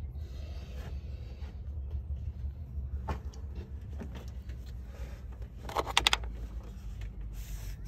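A steady low rumble, with a faint click about three seconds in and a quick clatter of several sharp clicks about six seconds in, the loudest sound here.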